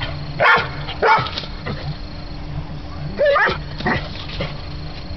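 A dog barking and yipping during rough play, about four short barks, one near the middle drawn out and wavering in pitch.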